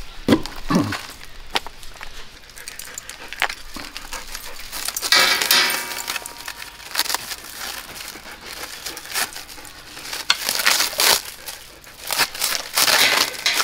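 Clear plastic bag of loose metal bolts and nuts crinkling and clinking as it is handled and pulled open, in irregular rustles with sharp clinks.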